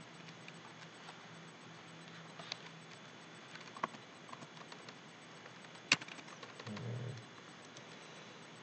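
Sparse computer keyboard key presses: faint scattered clicks, with one sharper keystroke about six seconds in, followed by a brief low murmur.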